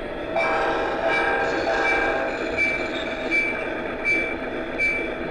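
Model train sound effects: a horn sounds for about two seconds near the start, and a short ringing tone repeats about every 0.8 s, like a locomotive bell.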